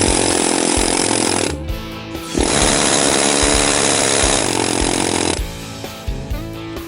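A benchtop power tool running in two bursts, about two seconds and then about three seconds long, with a short stop between them. Background music plays under it.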